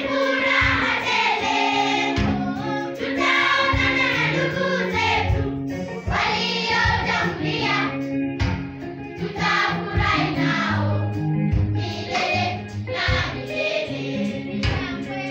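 Children's choir singing over instrumental backing of held bass notes and a steady beat.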